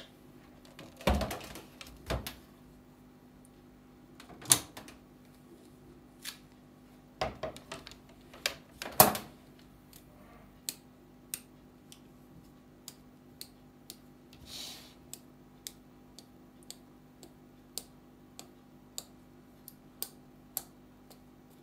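Clicks and hard knocks as an electric hand mixer's beaters are taken out and the mixer is set down on a stainless steel counter, the loudest knock about 9 seconds in. After that come light, even clicks about twice a second as the batter-coated beaters are handled over the bowl.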